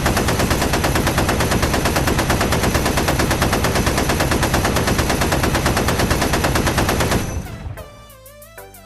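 Browning M1919A4 machine gun firing one long, rapid, continuous burst that stops about seven seconds in and echoes away.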